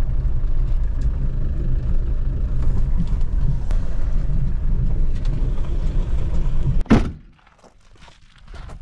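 Land Rover Defender 110 driving, a steady low engine and road rumble heard from inside the cab. About seven seconds in, a car door shuts with a single loud knock, and the rumble gives way to quiet with a few small clicks.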